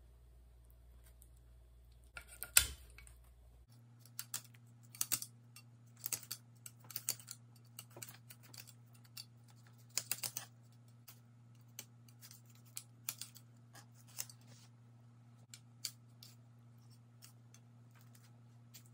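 Fillet knife cutting and scraping through a large trout's flesh and bones on a cutting board, with a paper towel rustling in the gripping hand. Irregular short scrapes and clicks, with one louder knock about two and a half seconds in.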